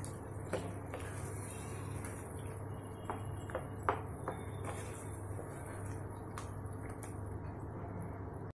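Wooden spatula stirring and pressing boiled potatoes in a pan of thick kurma, with a few light knocks and scrapes of the spatula against the pan over a steady low hum.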